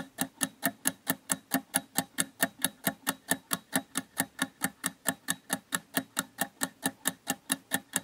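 Clock-style ticking sound effect for a countdown timer, steady and even at about four ticks a second, marking the time left to answer.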